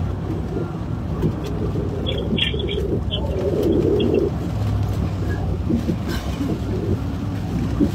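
Steady low hum of a car's engine heard inside the cabin, with a low wordless murmur from a person around the middle and a few faint clicks.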